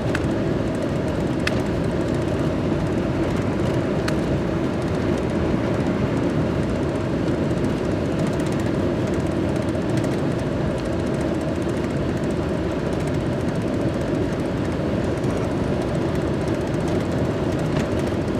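Steady engine and tyre noise inside a van's cab as it drives along a snow-covered road, a low, even rumble with a couple of faint ticks early on.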